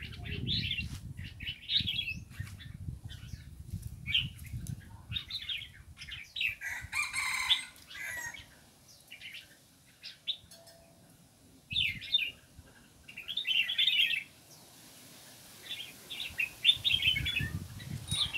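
Caged songbirds chirping in short, repeated bursts of high calls, with a brief fluttering, noisy burst about seven seconds in.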